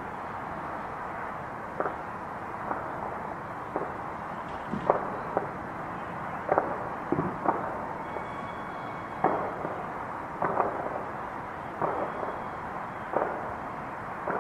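Fireworks and firecrackers going off around a neighborhood: a dozen or so muffled bangs at irregular intervals over a steady background hiss.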